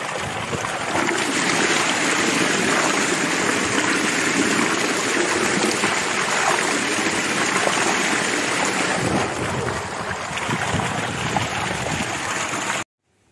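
Heavy stream of water gushing from a tubewell pump's outlet pipe and splashing onto a man bathing under it, a loud steady rushing and splashing that stops abruptly near the end.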